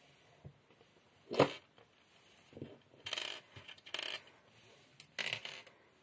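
A green-scaled Victorinox Bundeswehr pocket knife is picked up off a wooden tabletop and handled. There is one sharp knock about a second and a half in, followed by several short scrapes and rustles.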